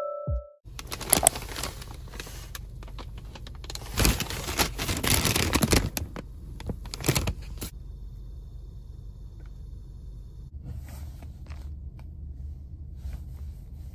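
Paper fast-food bags and wrappers crinkling and rustling as they are handled, loudest in the middle, over a low steady car-cabin rumble. Near the end come a few soft rustles of clothing.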